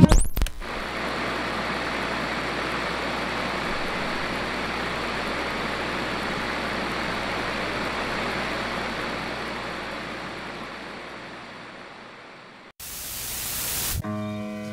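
Steady hiss-like noise with no distinct events, fading out over several seconds, then a short, brighter burst of hiss before piano music comes in near the end.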